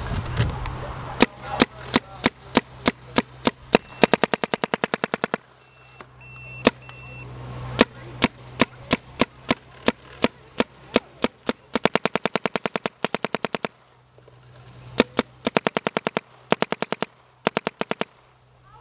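Planet Eclipse Geo 3.5 paintball marker, fed by a Dye R2 loader, firing: single shots at about three a second, then several fast strings of well over ten shots a second.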